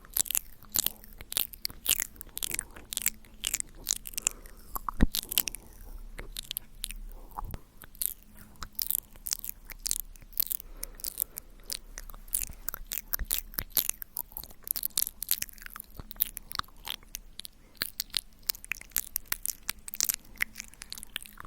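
Close-miked ASMR mouth sounds: quick wet clicks and smacks of lips and tongue, several a second in an uneven stream.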